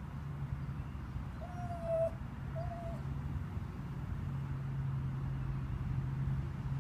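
Two short cooing animal calls, a longer one about one and a half seconds in and a shorter one about a second later, over a steady low hum that grows a little louder in the second half.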